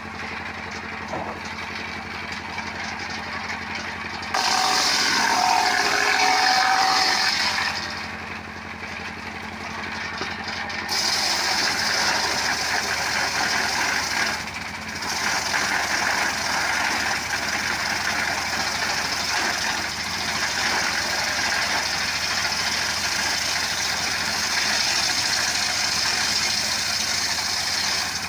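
Motorcycle engine running steadily, driving a homemade wood-cutting machine. It grows louder and hissier about four seconds in, drops back just before eight seconds, and picks up again from about eleven seconds.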